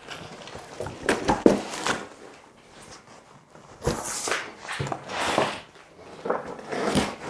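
Packaging being pulled off and handled during unboxing: irregular rustling and scraping with several knocks, and a hissing rip about four seconds in.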